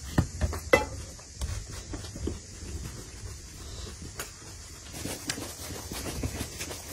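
Soft, irregular pats and taps of hands shaping and rolling bread dough into balls on a floured wooden board, a few louder slaps in the first second, over a low steady hum.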